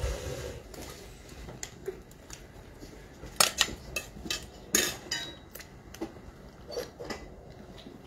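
Dishes and cutlery clinking: scattered clinks and clatters of plates and utensils, the loudest about three and a half and five seconds in.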